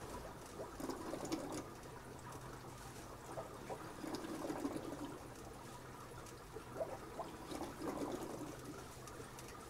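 Aquarium water trickling and splashing, over a steady low hum.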